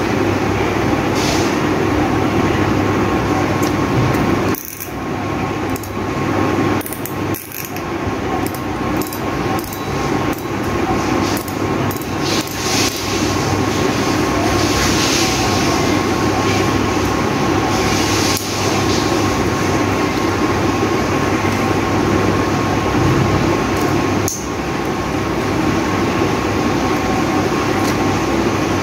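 Proberos AM5000 spinning fishing reel being cranked by hand, its rotor and gears running with a steady whirr. The whirr breaks up into uneven clicks and pauses from about five to eight seconds in.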